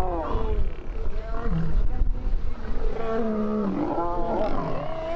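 Male lions snarling and growling at each other in a scuffle: several rough, overlapping calls that rise and fall, over a low rumble in the first two seconds.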